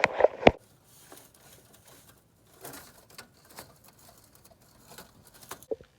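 Handling noise as she moves to show outside: a few sharp knocks and clicks in the first half second, then faint rustling with scattered clicks.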